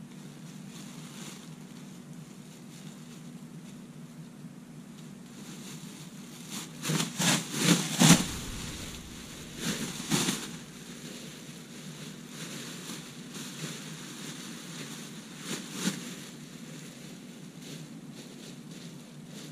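Plastic garbage bag and empty cans being handled and bagged: bursts of rustling and rattling, loudest in a quick run about seven to eight seconds in, with smaller bursts near ten and sixteen seconds, over a steady background noise.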